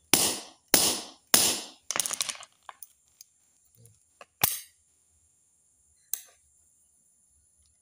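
Hammer blows on pliers clamped onto a brush cutter's loose throttle-cable fitting, crimping it tight: three sharp metallic blows about two-thirds of a second apart, then a quick rattle of clicks, and two more single knocks a few seconds later. The play in this fitting is what made the engine speed rise and fall on its own.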